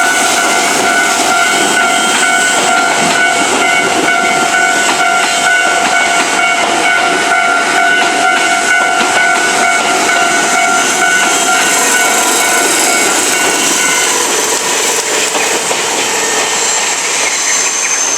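Railway level crossing warning bell ringing steadily over the noise of a passing train; the bell stops about 14 seconds in and the train noise eases off near the end.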